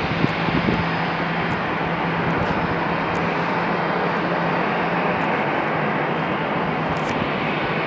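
Steady jet aircraft noise at an airport: an even rushing sound with a constant low hum underneath, a few soft knocks at the very start.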